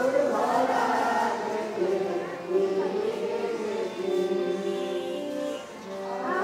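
A large group of schoolboys singing together in unison, with long held notes.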